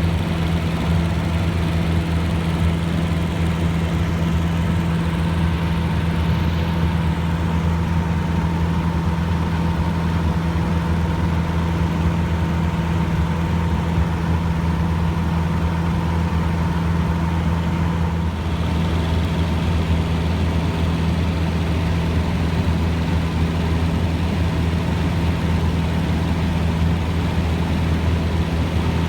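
Cessna 150J's four-cylinder Continental O-200 engine and propeller running steadily as a loud, even drone, with a brief slight shift about 18 seconds in.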